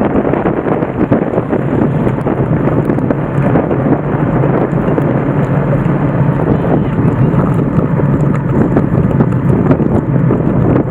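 Wind buffeting an open microphone during a bicycle ride: a loud, steady rushing rumble with no break.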